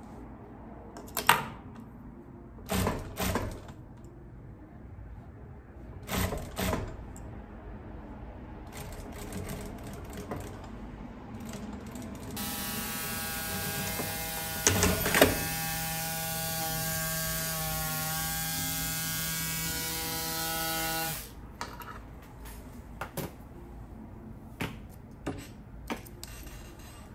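Industrial lockstitch sewing machine: a few short clicking bursts, then running steadily for about nine seconds with an even whine and hiss, stopping abruptly; small clicks follow as the fabric is handled.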